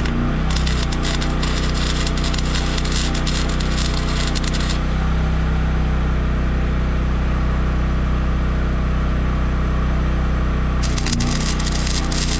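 Welding arc crackling in two stretches, from about half a second in for some four seconds and again near the end, while nuts are welded onto broken-off roller bolts to extract them. A steady engine hum runs underneath.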